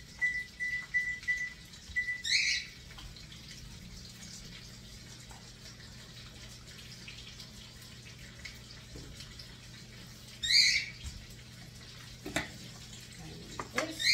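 Oven control panel beeping as the temperature is keyed in: a run of short, high, evenly spaced beeps over the first two seconds. A low steady hum follows. Three brief shrill squeaks come at about two, ten and fourteen seconds in.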